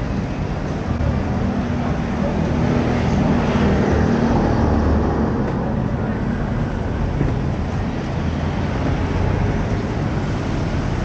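Street ambience of road traffic running steadily past, swelling briefly a few seconds in, with faint voices of people around.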